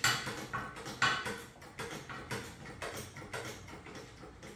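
A motorcycle lift stand being jacked up, giving a run of short metallic knocks. Two strong ones come at the start and about a second in, then smaller, uneven clicks fade away.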